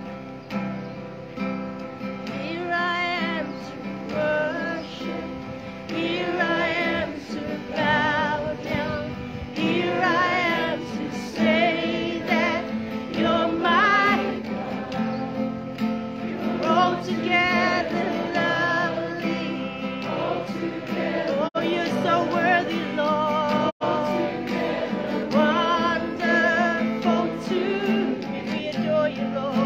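A woman singing a worship song to her own strummed acoustic guitar, her voice wavering with vibrato on held notes. The sound cuts out for an instant twice, about three-quarters of the way through.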